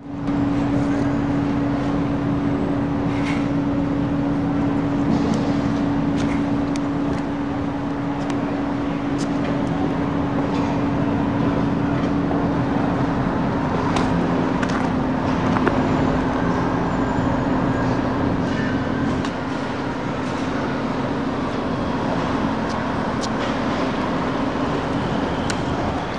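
Steady street traffic noise with a constant low hum running under it, which steps slightly lower in pitch about halfway through.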